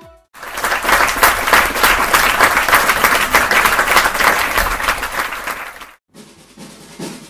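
Applause from a group of people, a dense patter of many hands clapping. It starts suddenly and runs for about five and a half seconds before cutting off abruptly, leaving a much quieter passage near the end.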